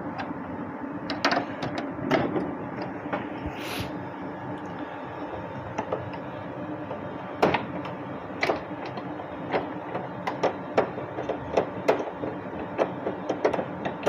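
Scattered clicks and light knocks from hands handling a Sharp dehumidifier's plastic casing and grille, coming more often in the second half, over a steady hum.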